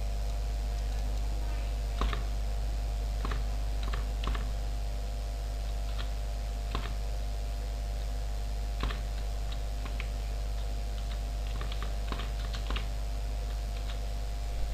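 Computer keyboard keys typed one at a time: scattered single keystrokes with uneven pauses between them, a quick cluster near the end. A steady low electrical hum runs underneath.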